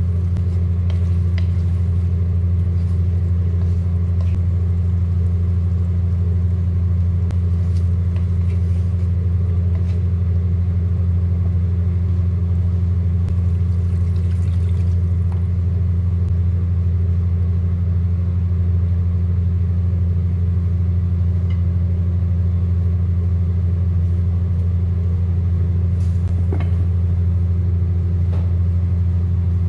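A steady, loud low hum runs unchanged throughout, with a few faint clicks of cookware on top.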